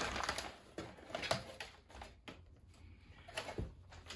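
Plastic-sealed bundle of laser-cut wood sheets handled against a cardboard kit box: plastic rustling at first, then scattered light knocks and scrapes.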